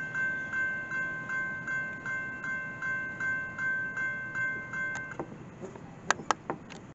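Railroad grade-crossing bell ringing at about three strikes a second while the crossing gates rise, then stopping about five seconds in. A few sharp clicks follow near the end.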